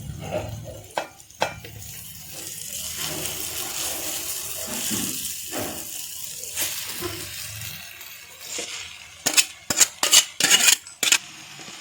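Noodles and sauce sizzling in a hot pan as they are stirred and tossed, with a utensil knocking against the pan. There are a few knocks at the start and a quick run of loud, sharp knocks near the end.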